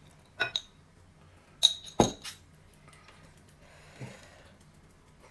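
Chopsticks clinking against glass: two light clinks, then two louder ringing clinks about a second and a half and two seconds in, the second with a dull knock as a glass jar is set down on the table. Soft stirring of noodles in a glass bowl follows.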